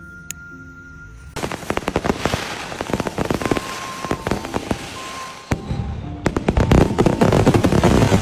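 Fireworks going off in a dense, rapid crackle of pops, starting about a second and a half in, with a short break around the middle and then a louder, denser volley near the end.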